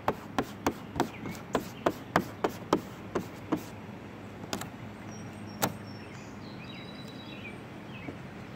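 A run of sharp clicks and taps, about three a second, as a plastic application paddle works a vinyl hood stripe down on the Jeep's hood. The clicks thin out to two lone ones midway and then stop; faint bird chirps follow near the end.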